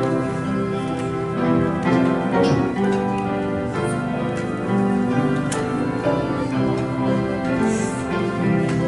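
Instrumental church music with held chords on keyboard instruments and no singing.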